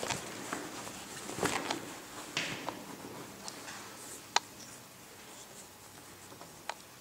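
Hands handling cotton fabric at a stopped sewing machine: soft rustling with scattered small clicks, one sharper click about four seconds in.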